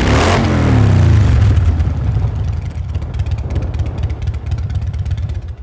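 Motorcycle V-twin running through a MagnaFlow exhaust: a sudden loud burst of throttle whose pitch swings in the first second, then a deep rumble that slowly dies down and cuts off near the end.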